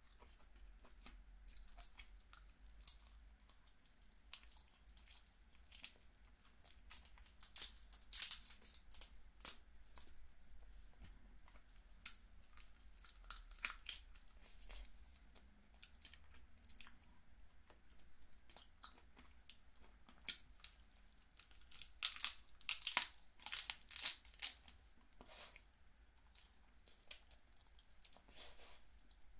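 Steamed snow crab picked apart by hand close to the microphone: crackling of shell and tearing of meat, mixed with chewing. The crackles come in bursts, densest about eight seconds in and again a little past twenty seconds.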